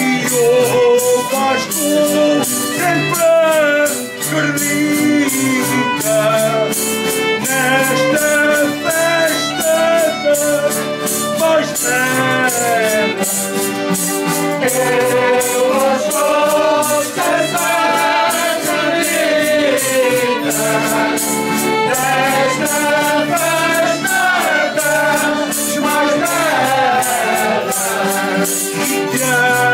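Folia group singing a traditional Azorean folk song in unison, with instrumental accompaniment and a steady percussive beat.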